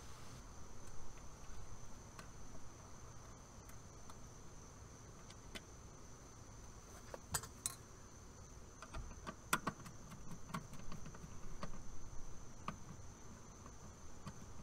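A faint, steady high insect trill, like crickets, runs throughout. Over it come scattered small metallic clicks and taps as wire strippers and a screwdriver work a ground wire under a terminal screw, the sharpest a little past halfway.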